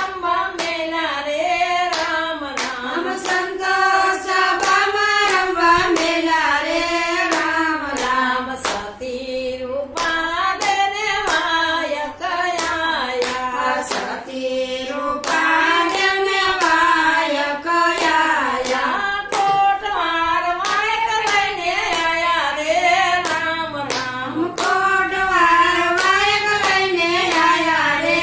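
Group of women singing a Gujarati devotional bhajan together on one melody, keeping time with steady hand claps.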